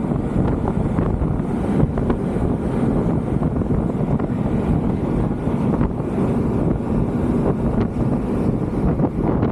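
Steady wind buffeting the microphone aboard a moving ferry, over the low rumble of the boat under way.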